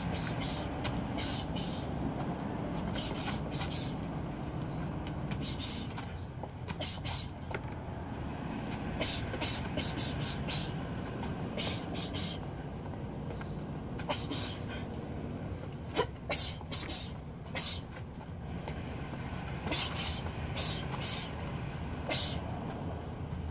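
Quick clusters of short, sharp hissing exhales from a boxer throwing punch combinations while shadowboxing, over a steady low background rumble.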